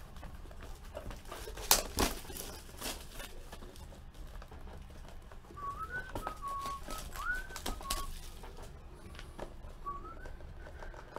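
Cardboard boxes of trading cards being slid, picked up and knocked on a table, with sharp taps about two seconds in. In the middle and again near the end come a few soft whistled notes, short rising and level tones.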